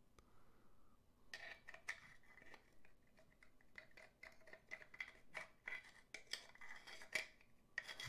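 Faint clicks, clinks and scrapes of a True Genius Aztec Passage puzzle box and its small metal key being handled and turned, a few small ticks a second from about a second in until near the end.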